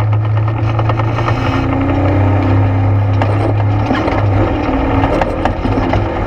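ATV engine running steadily under way on a trail, with frequent small knocks and rattles from the machine over rough ground.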